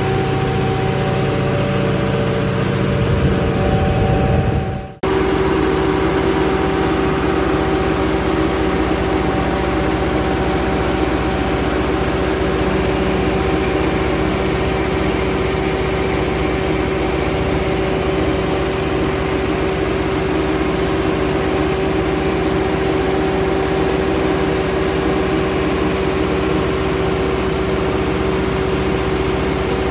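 Cummins 1750 kW diesel generator set running steadily inside its sound-attenuated enclosure while being load tested. About five seconds in, the sound drops out briefly, then carries on with less deep rumble and a steady mid-pitched hum standing out.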